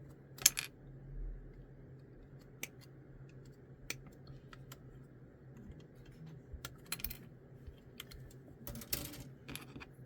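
Small plastic model-kit parts clicking and tapping as they are handled and pressed together, in scattered sharp clicks with a louder one about half a second in and small clusters near the end, over a faint steady hum.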